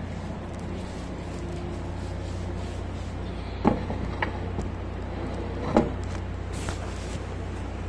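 Steady low hum of a running auxiliary diesel generator set, broken by three sharp clacks a little past the middle, like switches or a panel latch being worked.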